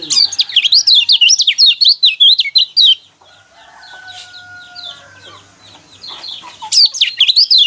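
Lemon-bellied white-eye (kecial kuning) singing a fast, chattering song of rapid high notes that flick up and down. It breaks off about three seconds in and starts again loudly near the end.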